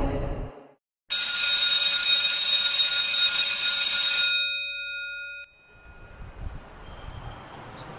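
A school bell rings steadily for about three seconds, then stops, its tones fading out over about a second.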